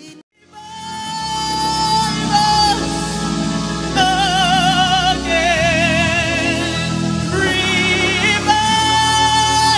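Live gospel singing: a lead vocal holds long notes with vibrato over band backing. The sound drops out briefly at the start, then swells in.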